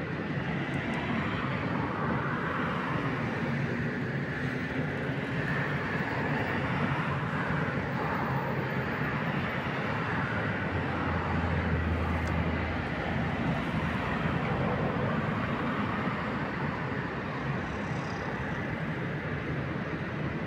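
Steady outdoor roar of a city railway station, with a low hum that swells for a couple of seconds around the middle.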